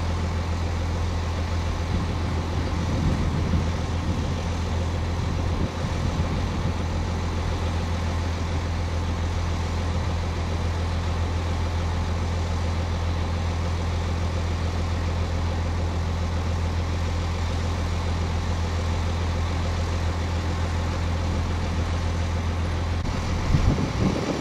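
Heavy dump truck's diesel engine running steadily with a constant low hum while its hydraulic hoist holds the bed tipped up to dump dirt. The engine goes briefly louder and rougher near the end.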